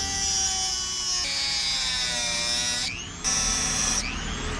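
Small high-speed rotary cutting tool whining as it cuts a new screwdriver slot into a stripped screw head, its pitch sagging as the cut loads it. It stops briefly about three seconds in, then spins back up.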